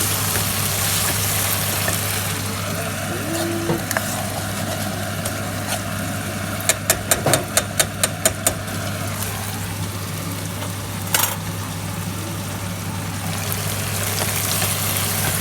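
Food sizzling in a frying pan over a steady low hum. About halfway through comes a quick run of about nine sharp clicks or taps, and a single click follows a few seconds later.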